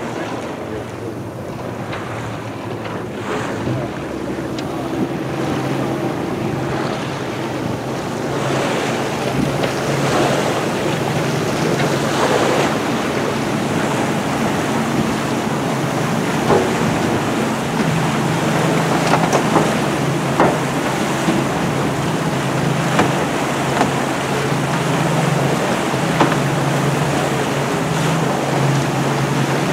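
Boat engine running steadily as the boat moves through the water, with water rushing and splashing in the wake and wind buffeting the microphone. The low engine hum grows stronger in the second half, with occasional sharper splashes.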